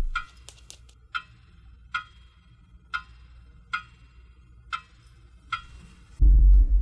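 Clock ticking slowly and evenly, about one tick a second, each tick with a light ring. Near the end a loud, deep low boom sets in.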